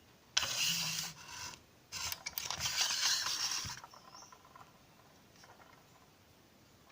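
Rubbing and scraping from a model helicopter and its display stand being handled, in two stretches: one of about a second, then a longer one of about two seconds.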